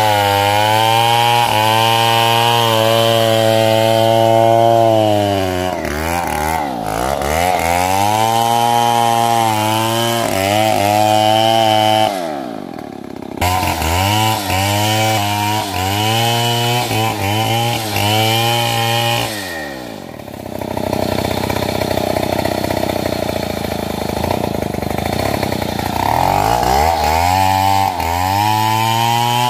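Stihl MS070 single-cylinder two-stroke chainsaw cutting sengon wood, its engine pitch repeatedly sagging and rising as it loads up in the cut. The revs drop briefly about twelve seconds in and again around twenty seconds, followed by a rougher stretch before it picks up again.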